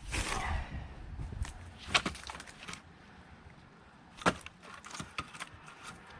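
Firewood being split with an axe: two sharp wooden knocks about two seconds apart, with a few lighter wooden clatters after the second.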